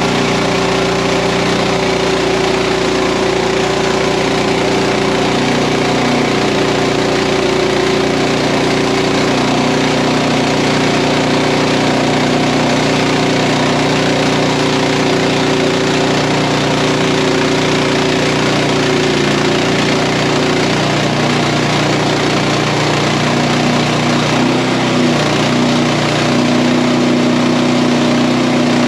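Frontier OS31 portable band sawmill running steadily as its blade saws through a wide American elm log. The engine tone shifts slightly in pitch about two-thirds of the way through.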